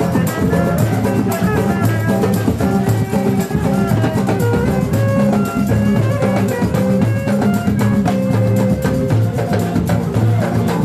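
Music with a steady drum beat under held melodic instrument notes.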